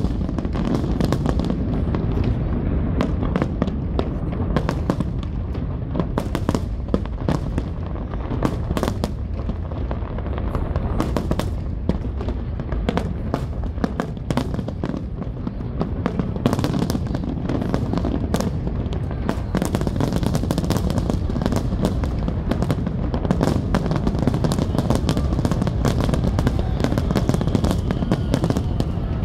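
Aerial fireworks display: shells bursting in rapid, continuous succession, dense crackling bangs over a steady low rumble.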